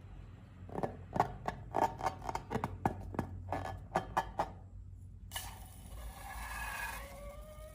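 Slime being handled, a run of short sticky pops and clicks about three or four a second, then after a short pause a steady rubbing noise with squeaky tones that rise and fall.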